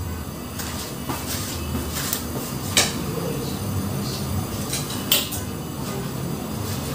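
Kitchen handling sounds: a few sharp knocks and clinks of a pot and utensils, the clearest about three seconds and five seconds in, over a steady low hum.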